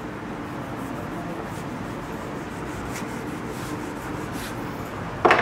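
Whiteboard eraser rubbing back and forth over a whiteboard, wiping off written lines, as a steady scratchy rubbing.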